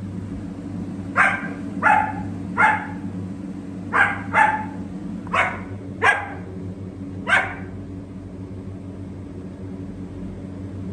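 German Shepherd dog barking, eight short barks in about six seconds that stop a little past halfway, over a steady low hum.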